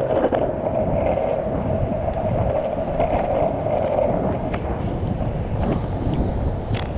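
Worn wheels rolling over pavement: a low rumble with a steady whir that fades about four and a half seconds in, and wind on the microphone.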